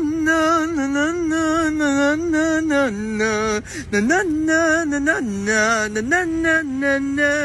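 A voice singing long wordless notes with a strong vibrato, the melody dipping lower and coming back up several times.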